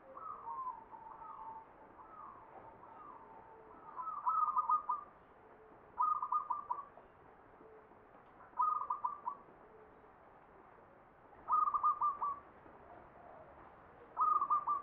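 Zebra dove (perkutut) cooing: a few soft, slurred coos at first, then five loud song phrases every two to three seconds, each a quick run of four or five short staccato notes.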